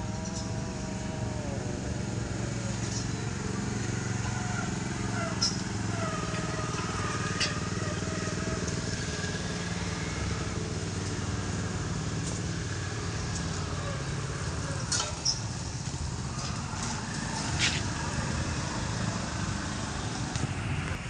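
An engine running steadily, with a few sharp clicks.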